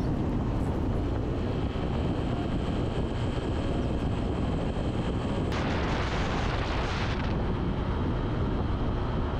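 Motorcycle riding at speed: a steady rumble of wind and road noise buffeting the camera's microphone, with the bike's engine beneath. A louder rushing hiss comes in about five and a half seconds in and stops about two seconds later.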